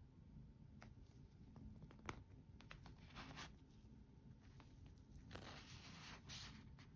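Faint handling noise as fingers turn a stainless-steel chronograph watch with a mesh bracelet on its cushion: soft rubbing and scraping, with one sharp click about two seconds in.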